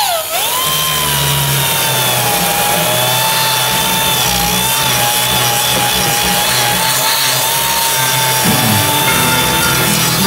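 Power grinder cutting into the steel sill panel of a car body. Its whine dips sharply in pitch just after the start as the disc bites into the metal, then holds steady under load.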